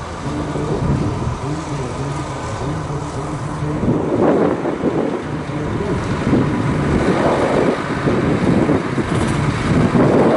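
DAF truck's diesel engine running as the truck, pulling a curtainside trailer, drives closer. A steady low engine note in the first few seconds turns louder and rougher from about four seconds in.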